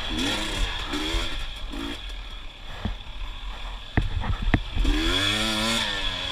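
KTM 250 XC TPI two-stroke dirt bike engine revving up and dropping back again and again in short bursts. A few sharp knocks come a little past the middle.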